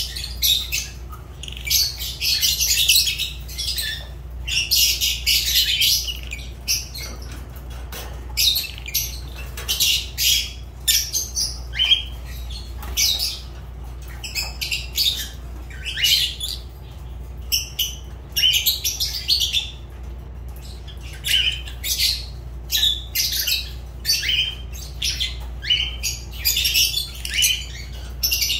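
Fischer's lovebirds giving shrill chirps and squawks in quick runs with short gaps, a few calls sliding down in pitch.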